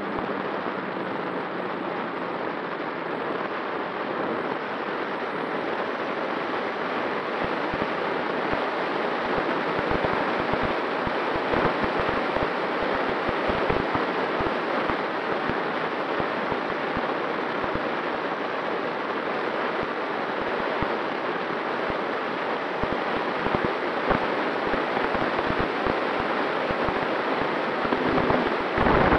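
Wind rushing over the microphone of a Skua FPV flying-wing plane in flight, with gusty low buffeting that gets busier after several seconds and a faint steady hum from its electric motor and propeller underneath.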